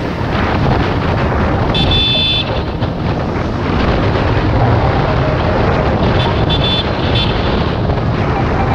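Yamaha R15 single-cylinder motorcycle engine running at road speed, heavily overlaid by wind rushing over the helmet-camera microphone. A brief high-pitched beep about two seconds in, and a few shorter ones near the end.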